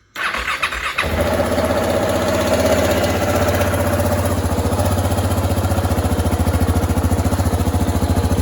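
2018 KTM 690 Enduro R's single-cylinder engine being started: the electric starter cranks briefly, the engine catches about a second in and then idles steadily through the stock muffler, a pretty quiet exhaust note.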